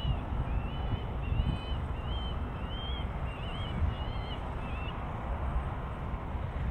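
A small bird calling over and over in short whistled chirps that rise and fall, about two a second, stopping about four seconds in. Under it runs a steady low rumble.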